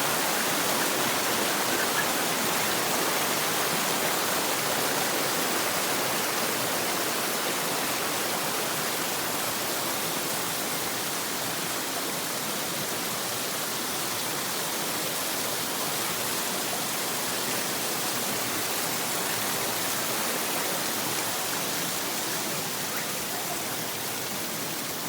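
Running water, a steady, even rush.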